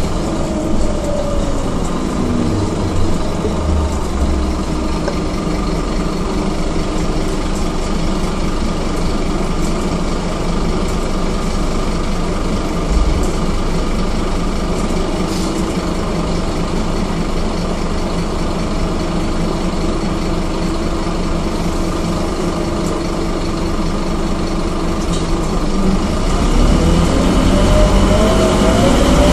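Scania K230UB bus's rear-mounted diesel engine heard from inside the cabin: it winds down in pitch as the bus slows, then idles steadily for most of the time. Near the end it climbs in pitch and gets louder as the bus pulls away.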